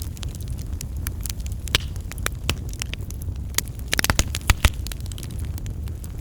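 Wood fire crackling in a fireplace: a steady low rumble of flames with scattered sharp pops, a quick cluster of louder pops about four seconds in.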